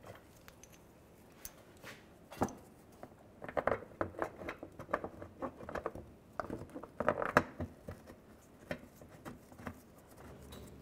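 Light clicks, taps and scrapes of a plastic underbody shield being pushed into place against the truck's underside while its bolts are started by hand, irregular and busiest in the middle.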